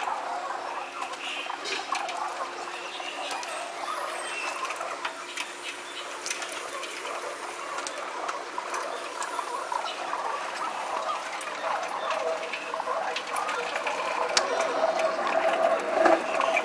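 Feral pigeons pecking seed off a concrete ledge: rapid, irregular ticking of beaks on the stone with a busy shuffle of feet and feathers, sped up to double time. A few louder clicks come near the end.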